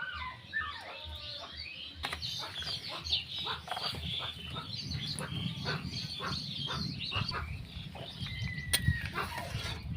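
Chickens clucking, with many short bird calls over a low rumble.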